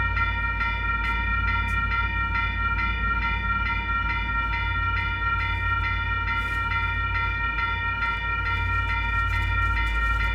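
Electronic railroad crossing bells (WCH Type 3) ringing in a steady, rapid repeating rhythm over a steady low rumble.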